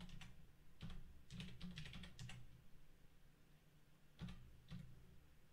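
Faint typing on a computer keyboard: scattered keystrokes, with a quick run of them in the first couple of seconds and a couple more near the end.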